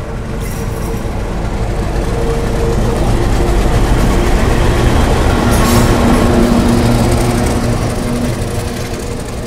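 Two diesel locomotives hauling a passenger train into the station: a heavy low rumble and a steady engine drone. It grows louder toward the middle as the locomotives pass close by, then eases as the coaches follow.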